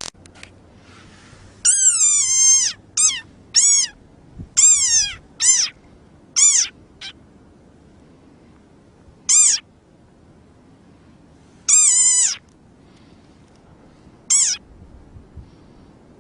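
A frog giving high, squeaky calls like a squeezed rubber toy, each sliding down in pitch. Seven come in quick succession over the first five seconds, then three more a couple of seconds apart.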